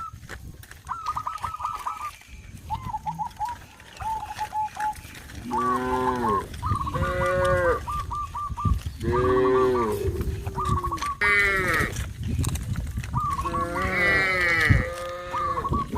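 Cattle mooing, about five long calls from about five seconds in, the loudest sounds here. Between and under them a bird gives short runs of rapid repeated chirps.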